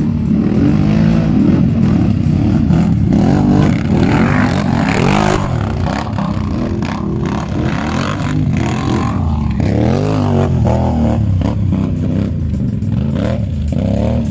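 ATV quad engine revving hard, its pitch rising and falling over and over as the throttle is worked.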